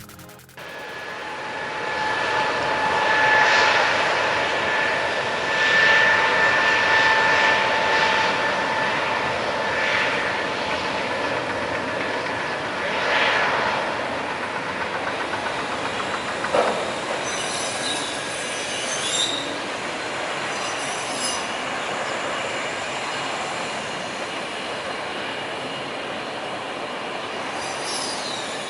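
Airbus A320neo jet airliner's engines: a steady rushing noise with a high whine of two held tones through the first several seconds.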